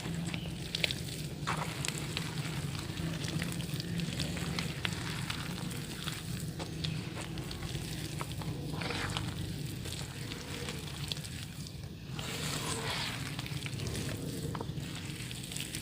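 Soft dirt crumbling and dissolving in water, with a steady fizzing crackle of fine ticks. Louder crumbling bursts come about halfway through and again a few seconds later.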